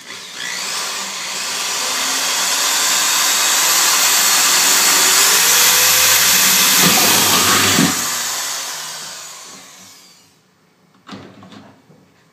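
Electric drill running steadily as it bores a pilot hole through the thin copper wall of a still boiler; after about eight seconds it fades out over a couple of seconds. Near the end, a few sharp clicks of tin snips starting to cut the copper.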